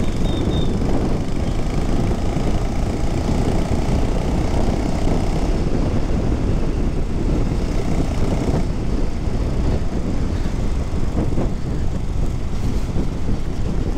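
Benelli motorcycle engine running steadily under throttle while riding.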